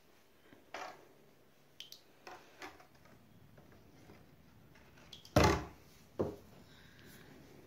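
Light clicks and knocks of a plastic bottle boat being handled over a bathtub. About two-thirds of the way in, the boat is set down in shallow bathwater with a louder hollow thump, and a smaller thump follows just after.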